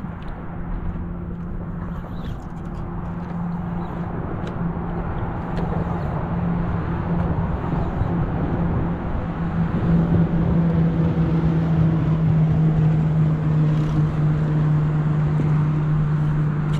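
A boat motor running with a steady hum that sags slightly in pitch and grows louder, over a low wind rumble on the microphone.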